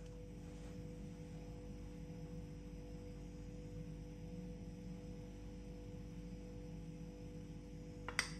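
A steady low hum with a few faint held tones, and one sharp clink near the end: a metal spoon against a glass bowl.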